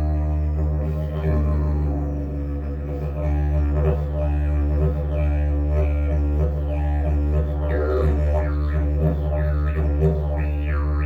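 Agave slide travel didgeridoo played as a continuous low drone, its key set to about D by the small slide section. The drone is steady underneath, with rhythmic accents from about four seconds in and overtones sweeping up and down as the player shapes his mouth.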